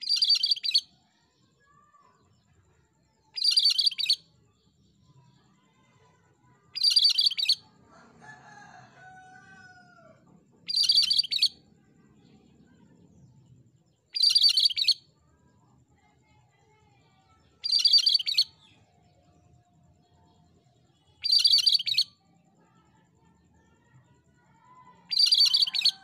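Cucak kerinci (cream-striped bulbul) calling: a short, high-pitched phrase of under a second, repeated eight times at an even pace of about one every three and a half seconds.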